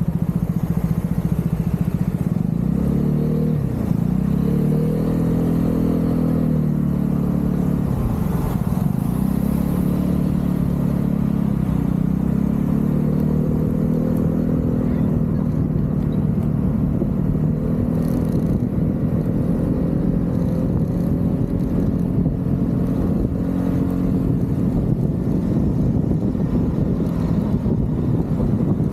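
Vespa GTV 300 scooter's single-cylinder four-stroke engine running under way. Its pitch drops sharply and climbs back twice in the first several seconds as the throttle is eased and reopened, then holds fairly steady, over constant road and wind noise.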